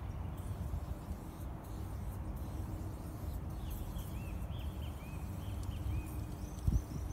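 Small birds chirping in a run of short notes over a steady low outdoor rumble, with a couple of low thumps near the end.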